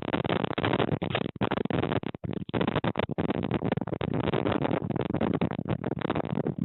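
Strong gusty wind buffeting the microphone: a loud, dense, crackling rush with brief dropouts about one and a half and two seconds in.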